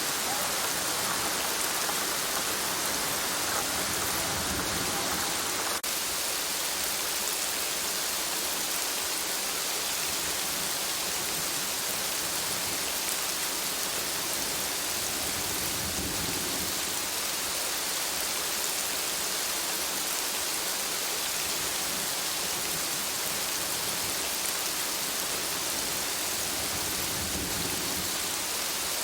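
Rain falling steadily, an even dense hiss of drops, with a faint click about six seconds in.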